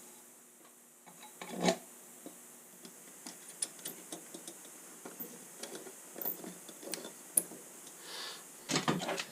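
Scattered small metal clicks and ticks of hand tools and parts being handled on a wood stove door as its handle is taken off, with one louder knock about two seconds in and a few knocks near the end.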